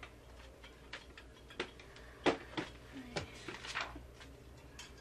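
Scattered light clicks and knocks of household handling, about half a dozen in all, with a brief rustle of paper a little past the middle.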